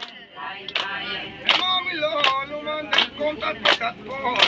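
A group singing a ponung folk song in unison, with hand claps on the beat about every three-quarters of a second. The sound starts abruptly.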